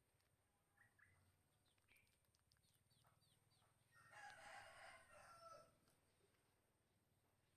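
Faint rooster crowing once, about four seconds in, a single call of nearly two seconds.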